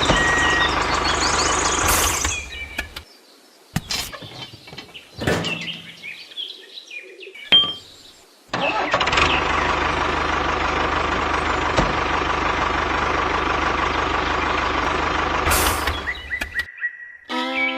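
Engine-like vehicle noise in two long stretches that cut in and out abruptly, with a quieter gap between them holding a few sharp knocks.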